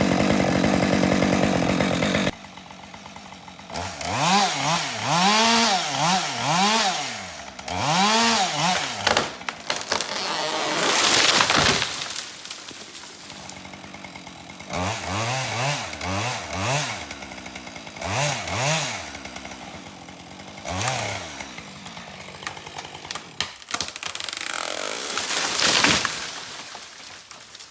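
Husqvarna 550 XP two-stroke chainsaw running at full throttle, then dropping suddenly to idle about two seconds in. After that it is revved in repeated quick rising-and-falling blips, with short stretches of cutting through wood.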